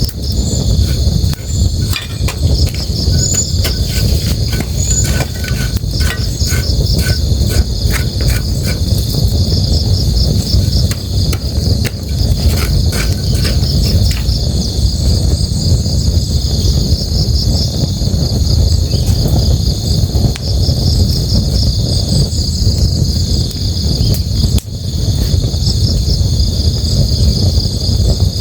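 Night ambience of a campfire by a river: steady rushing water underneath, crickets chirping continuously in a high trill, and sharp crackles and pops from the fire, thickest in the first third and again around the middle.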